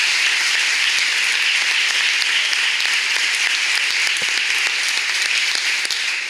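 Audience applause, a dense, steady clapping that starts to die away at the very end.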